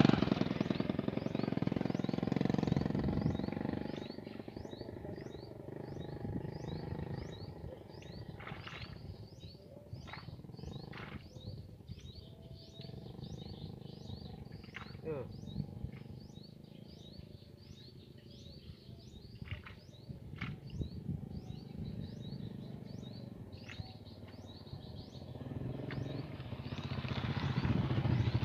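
A small bird calls a short high chirp over and over, evenly, more than once a second, with a few faint clicks between. A road vehicle fades away over the first few seconds and another approaches near the end.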